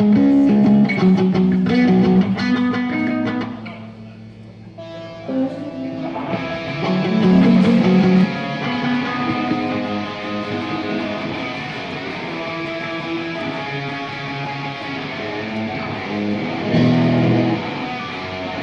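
Amplified guitars with bass playing during a band sound check. Loud picked notes at first, a brief dip about four seconds in, then a fuller, steadier sound from about six seconds on.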